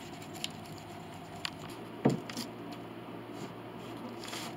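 A few light clicks and one sharper knock about two seconds in from tools and parts being handled, over a steady low workshop hum.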